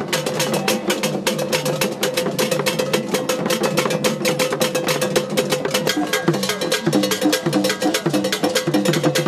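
Akom drum ensemble playing for the dance: hand drums such as the apentema under a fast, even stream of sharp strikes, about six a second.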